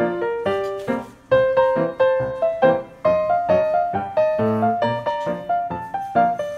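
Background keyboard music: a steady run of struck notes, with a short break about a second in.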